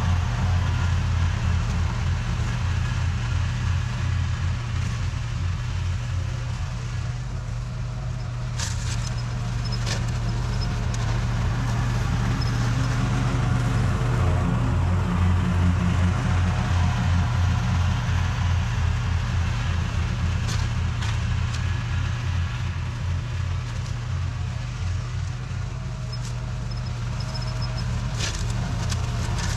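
Toro TimeCutter SS4260 zero-turn lawn mower engine running steadily while mowing, its level easing down and back up twice, with a few light clicks.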